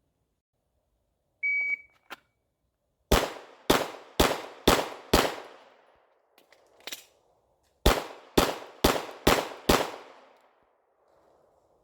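A shot timer beeps once, then a 9mm Glock 19 pistol fires two strings of five rapid shots, about half a second apart, with a pause of about two and a half seconds between the strings.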